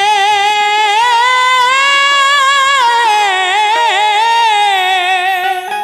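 Male qawwali lead singer holding one long drawn-out note with vibrato, rising a little and easing back down, over a sustained harmonium chord.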